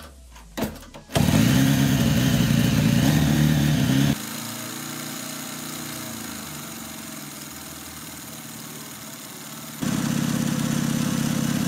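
Restored Soviet shaft-drive motorcycle engine starting about a second in and running fast at first. At about four seconds in it settles to a quieter, steady idle. Near the end it picks up again to a higher speed.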